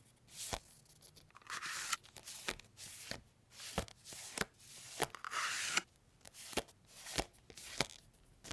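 Paper and plastic stationery packets handled close to the microphone: a run of sharp taps and clicks, broken by two longer crisp rustles, one about a second and a half in and one about five seconds in.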